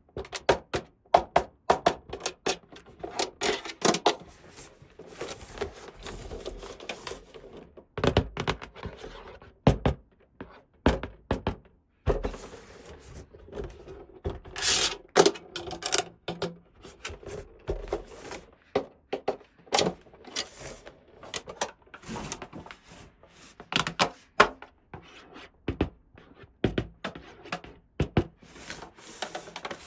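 Small plastic toy pieces and packaging being handled up close: many irregular clicks, taps and light knocks, with some rubbing between them.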